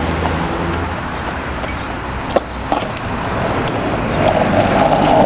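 Skateboard wheels rolling over rough asphalt in a steady rumble, with a couple of sharp clicks from the board about two and a half seconds in, growing louder near the end.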